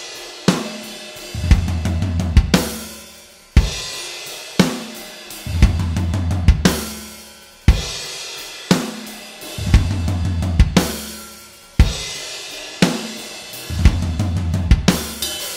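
Recorded rock song intro: a drum kit plays a slow pattern with a loud crash-cymbal accent about once a second, each ringing out, over a low held note. Two accents come close together near the end.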